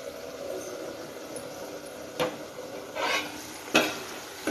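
Steel ladle stirring a thick curry in a metal pot, knocking and clinking against the pot four times in the second half, the third clink the loudest, over a faint steady sizzle from the simmering curry.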